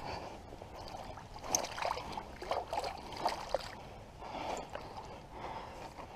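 Flowing creek water with irregular small splashes and knocks, several close together between about one and a half and three and a half seconds in.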